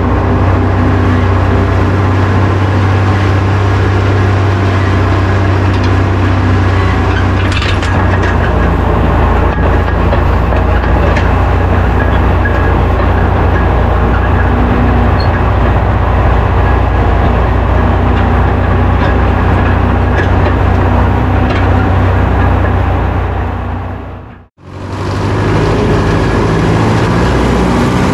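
Farm tractor engine running steadily under load while pulling a chisel plow through a field. The sound fades out briefly near the end and comes straight back.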